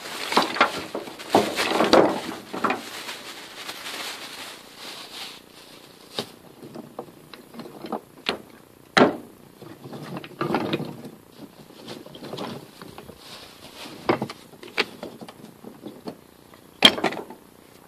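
Rustling as tinder and sticks are handled in a metal fire-pit pan, then small wooden offcut blocks knocking and clattering as they are set down one by one to build a fire lay, with a sharp knock near the end.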